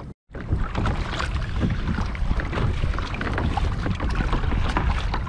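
Wind rumbling on the microphone over water splashing around a kayak, with many small clicks and knocks throughout; the sound drops out briefly right at the start.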